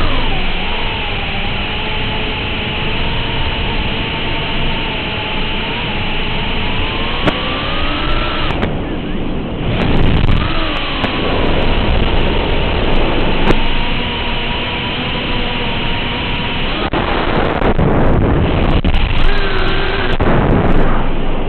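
7-inch FPV quadcopter on 5-inch propellers, heard through its onboard microphone over the analog video link: a motor whine that rises and falls in pitch with the throttle, under heavy wind rush and static. The whine drops out for about a second roughly nine seconds in, then returns.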